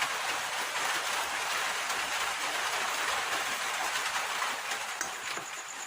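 Steady rushing hiss. About a second before the end a faint, thin, high steady tone comes in over it.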